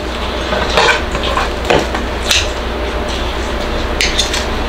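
Light clicks and clinks of tableware and plastic takeout containers being handled, then a quick cluster of snips near the end as kitchen scissors cut cold noodles in the bowl.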